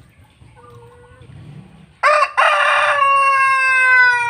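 A rooster crowing once, loud and close, starting about halfway through: a short opening burst, then a long held note that sinks a little in pitch toward its end.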